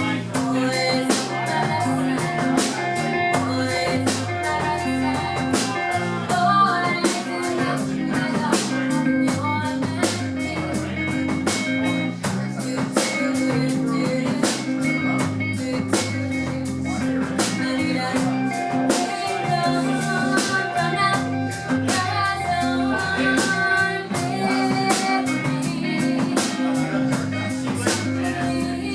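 Band music: electric guitar and bass over a steady drum-kit beat, in a rock song.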